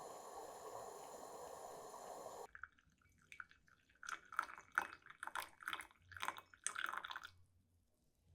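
Szarvasi espresso maker brewing: a steady hiss cuts off about two and a half seconds in, followed by a few seconds of irregular drips and sputters as the last coffee comes through.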